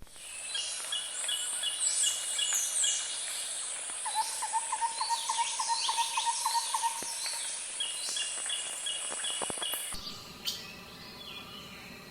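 Several songbirds singing together in a forest, with repeated high notes and, partway through, a lower trill of quick notes. The birdsong cuts off abruptly near the end, giving way to a quieter background.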